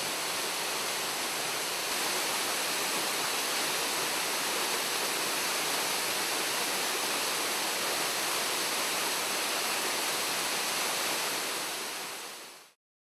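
Chihaya waterfall rushing, a steady dense roar of falling water; it fades out near the end.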